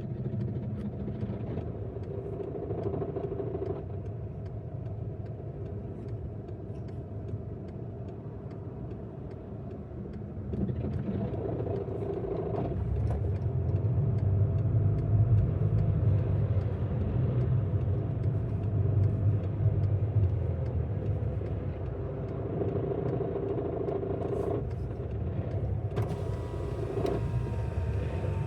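Volkswagen Golf Mk5 2.0 TDI four-cylinder turbodiesel running with a rattling noise, which the owner suspects comes from the gearbox. It gets louder about a third of the way in and stays louder for several seconds.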